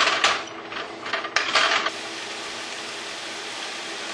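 Wooden spatula scraping and chopping raw ground beef in a skillet, several quick strokes. About two seconds in, this gives way abruptly to the steady sizzle of browned ground beef frying in the pan.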